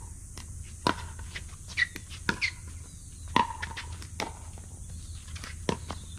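Pickleball rally: paddles striking the plastic ball with a sharp, ringing pock, about seven hits at uneven intervals, with lighter taps between them.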